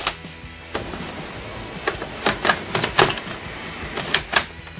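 Power Rangers RPM electronic toy blaster: a sharp click at the start, then the toy's electronic sound effect playing through its small built-in speaker, a noisy burst with a quick series of sharp clicks and bangs.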